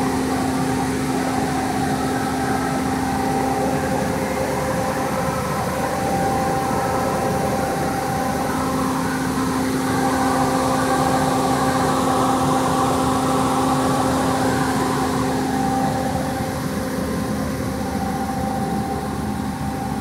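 Sany STC500 truck crane's diesel engine idling steadily while its air conditioning is being recharged: a constant hum with a steady tone running through it.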